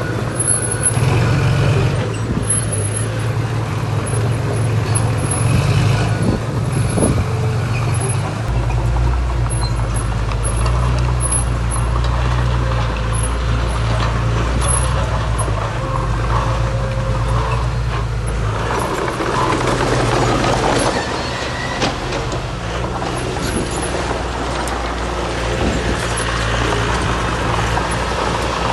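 Heavy diesel construction machinery, bulldozer and dump trucks, running steadily under load. The engine drone deepens about eight seconds in, and a rushing noise rises briefly about twenty seconds in.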